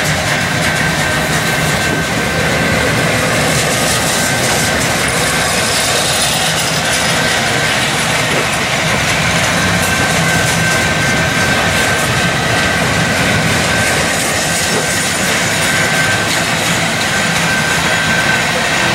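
Freight cars of a long manifest train rolling past at close range, steel wheels clattering on the rails, with a thin high wheel squeal coming and going.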